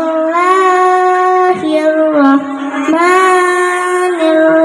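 A girl's voice chanting Quranic recitation in long held notes that step up and down in pitch, with two short breaths between phrases. She is amplified through a microphone and PA speakers.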